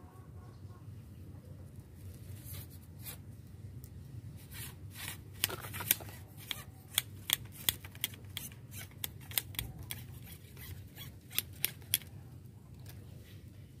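Sharp, irregular clicks and ticks, several a second, from handling a fishing rod and reel. They start a couple of seconds in and stop shortly before the end.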